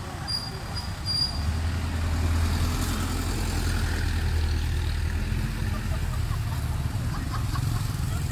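Motor traffic driving past on the road: a low, steady engine hum that swells about a second in and stays strong for several seconds before easing off.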